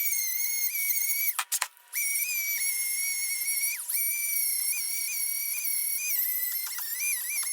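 High-speed handheld rotary tool whining at a steady high pitch while cleaning the gasket surface of a Ford 4.0 V6 cylinder head. The pitch sags briefly now and then as the tool is loaded, and it stops for about half a second roughly a second and a half in.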